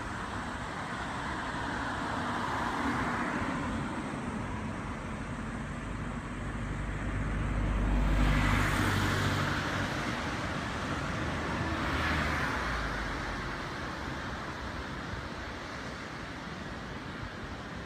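Waves breaking on the beach: a wash of noise that swells and fades about three times, loudest with a low rumble about eight seconds in.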